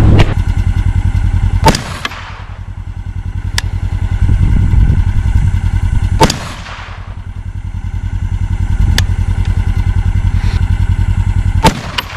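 Three rifle shots from an AR-platform rifle in .22 ARC, about four and a half seconds apart, each sharp crack trailing off in an echo. A steady low rumble runs underneath.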